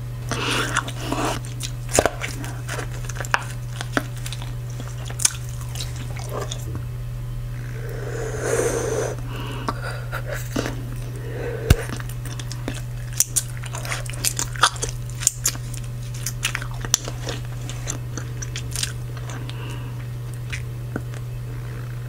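Close-miked bubble gum chewing: wet smacking with many scattered sharp snaps and pops of the gum, the loudest a little before halfway, over a steady low hum.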